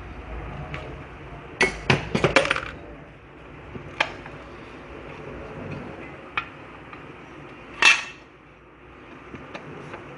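Metal hand tools clinking and clattering: a quick cluster of knocks about one and a half to two and a half seconds in, then single sharp clinks around four, six and eight seconds.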